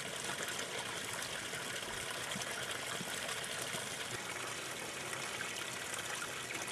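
Spring water running and splashing down a rocky stream channel: a steady, unbroken rush of water. The spring is flowing unusually strongly after a wet year.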